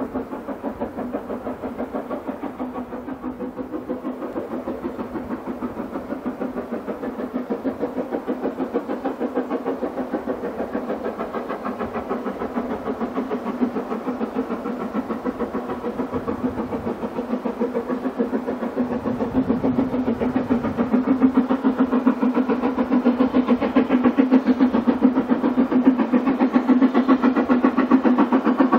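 Steam locomotive working, its exhaust beating rapidly and evenly at about four beats a second, growing louder over the second half.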